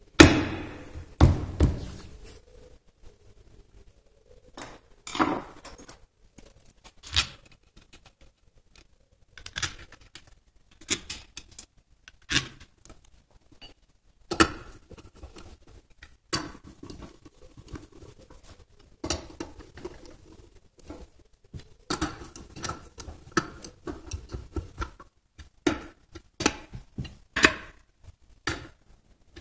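Scattered metallic clinks and knocks as bolts and parts are set onto the aluminium case of a Hondamatic transmission and a bolt is worked with a hand tool, the loudest knock right at the start.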